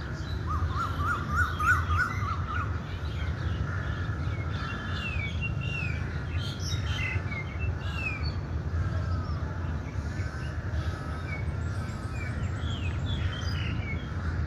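Several birds chirping and calling, with a quick run of repeated notes near the start and scattered short rising and falling calls after, over a steady low rumble.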